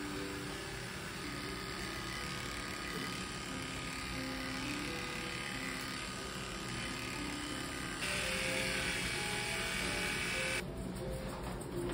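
Cordless electric pet clipper buzzing steadily as it trims fur on a small dog's face, under background music. The buzz grows louder for a couple of seconds near the end, then cuts off suddenly.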